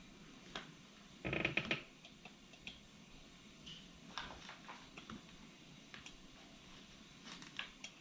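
Sargent & Greenleaf mechanical safe-lock dial turned by hand while dialing in a combination, giving faint scattered clicks, with a louder half-second rattle about a second and a half in.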